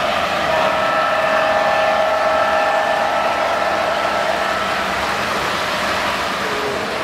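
Three-rail O-gauge model trains running on the layout track: a steady running sound with a constant whine over it.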